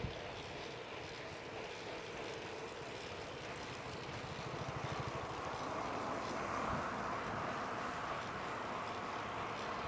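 Steady road noise of riding a bicycle along a city street, a hum of wind and traffic that grows louder about halfway through.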